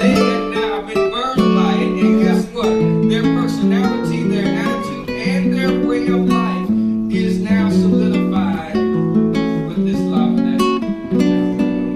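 Acoustic guitar music, chords strummed and picked in a steady flow of notes.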